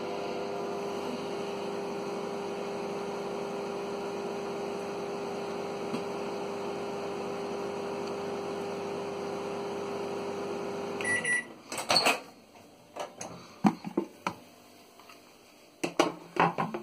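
Microwave oven running with a steady hum, then a short high beep just past eleven seconds in as it stops at the end of its cycle. After that come a few knocks and clatters as the door is opened and the plate with the egg is handled.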